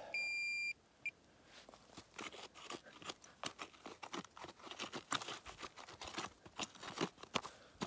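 A metal detector's signal tone sounding steadily for under a second, with a short blip about a second in. Then a run of quick, irregular crunches of ploughed soil being dug and broken up to recover the target.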